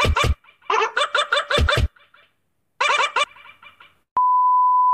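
A dog's short barks, cut and pitched into a fast tune, play in runs of quick notes with brief gaps. Just after four seconds in there is a click, then a steady beep.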